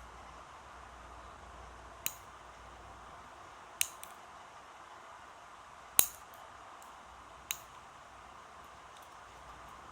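Fingernails being cut: four sharp, crisp snips spaced about two seconds apart, the third loudest, with a few faint ticks between, over a steady faint background hiss.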